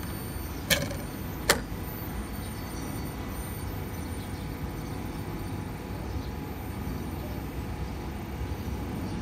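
Two sharp clicks about a second apart as a thin steel diamond mesh saw blade is handled and set down on a hard stand, over a steady low background hum.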